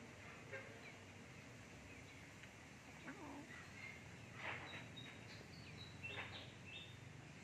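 Faint outdoor background with small birds chirping in short high calls, mostly in the second half, and a few soft clicks.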